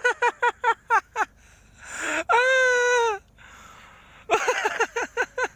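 A duck hooked on a fishing line, calling in distress: quick runs of short quacks, about six a second, broken about two seconds in by a raspy note and one long drawn-out call, then another quick run near the end.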